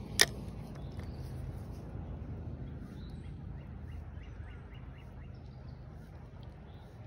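A single sharp click about a quarter second in, then a steady low hum with a short run of faint bird chirps in the middle.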